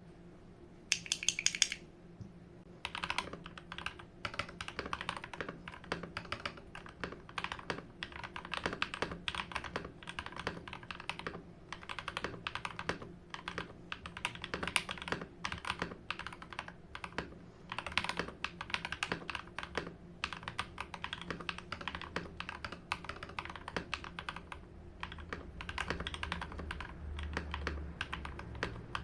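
Typing on a modded Royal Kludge RK G68 mechanical keyboard: rapid key clacks in runs, with short pauses between them.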